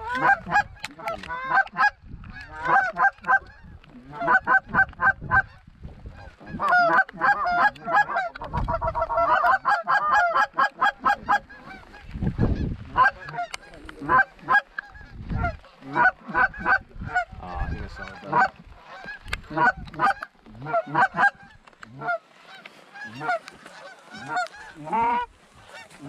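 Geese honking in quick, overlapping series, with a fast run of clucking calls about nine to eleven seconds in. A few low rumbles sound underneath.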